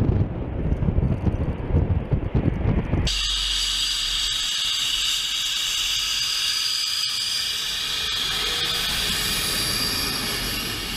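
Low rumble of a delta-wing fighter jet's engine on approach with its gear down; about three seconds in it cuts abruptly to the steady, high-pitched whine of an F-15's twin jet engines as it taxis past close by.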